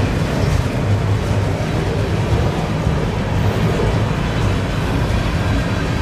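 Manifest freight train cars rolling past at close range: a steady, loud rumble of steel wheels on the rails.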